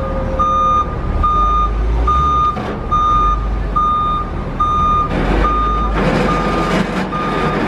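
Forklift backup alarm beeping steadily, a little more than one beep a second, over the low rumble of the forklift's propane engine working.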